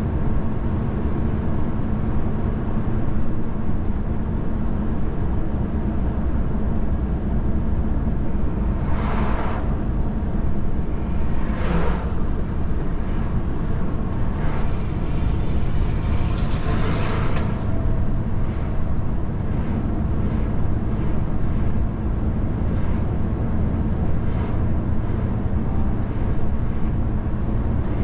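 Car driving on a wet road: a steady low rumble of road and engine noise, with three brief swells of tyre hiss, the last the longest.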